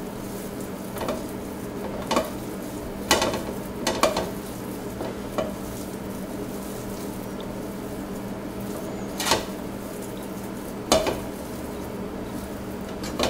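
Raw ground beef being pulled apart by hand in a nonstick skillet: soft squishing handling with scattered short knocks and taps of meat and fingers against the pan, over a steady low hum.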